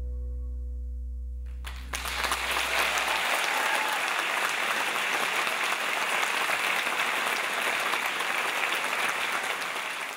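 The band's final held keyboard chord with a deep bass note dies away, and about two seconds in a full concert hall audience breaks into loud, sustained applause.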